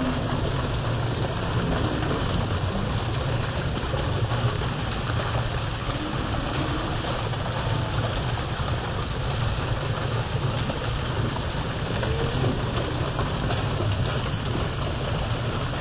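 Steady rush of water spraying and pouring from a pool's water-play structure onto the pool surface, with a steady low rumble underneath.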